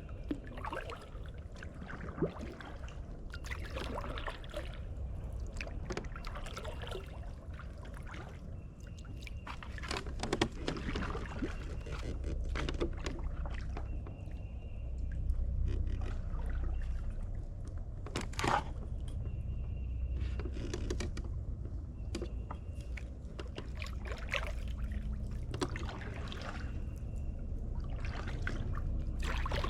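Kayak paddle strokes in creek water: a splash and drip on each stroke, repeating every second or two.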